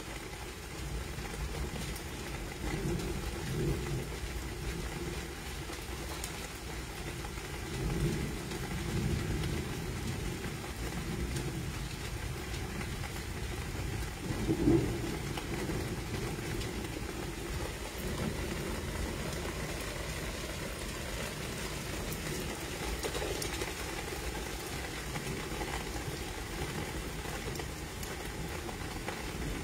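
Steady rain, with low rumbles swelling up a few times, the strongest about fifteen seconds in.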